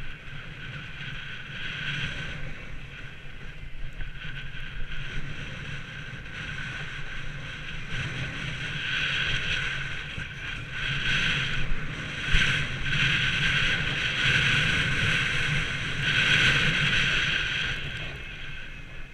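Skis or a board sliding fast down a packed, tracked ski run, with the edges scraping and hissing over the snow and wind rushing across the microphone. The noise swells and eases in waves as the rider turns, loudest about twelve to thirteen seconds in and again near the end.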